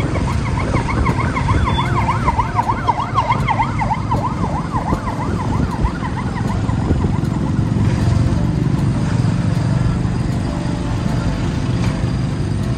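A siren yelping rapidly up and down, about four sweeps a second, fading out about halfway through. Under it, heavy low rumbling wind and traffic noise from vehicles passing close by in blowing ash.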